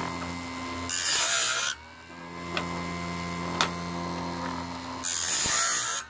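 Homemade automatic bandsaw blade sharpener running: the chainsaw-sharpener grinder motor hums steadily, and its abrasive wheel grinds a blade tooth with a loud hiss about a second in and again near the end. A few sharp clicks come in between as the feed mechanism indexes the blade to the next tooth.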